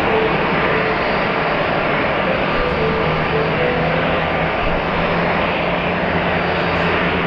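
Airbus A330-300's twin Pratt & Whitney PW4000 turbofan engines running steadily: a dense, even noise with faint steady hum tones underneath.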